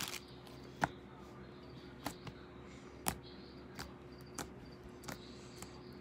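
Slime being squeezed and poked by hand, giving a run of small, sharp pops at uneven intervals, about seven in six seconds.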